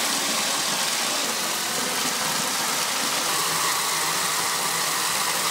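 Water running steadily from a bathtub tap into a partly filled tub.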